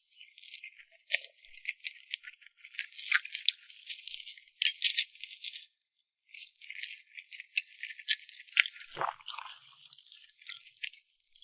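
Crinkling and rattling of food packaging being handled: a dense run of small crackling clicks with a brief pause about halfway, and a soft knock about nine seconds in.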